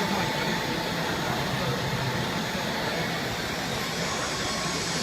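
GE FONG G-206 Swiss-type CNC lathe running: a steady, unbroken machine noise.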